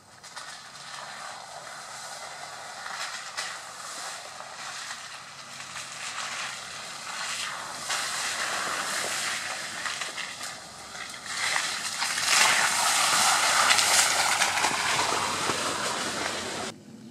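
An SUV's tyres crunching and squelching over a gravel and mud trail as it drives slowly toward the microphone, growing louder as it nears, then cutting off suddenly near the end.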